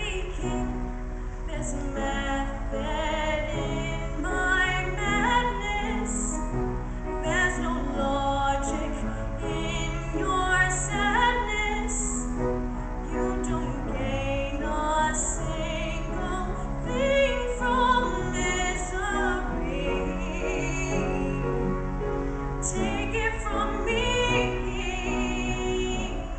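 A young woman singing a solo into a microphone, her held notes wavering with vibrato, over a sustained instrumental accompaniment.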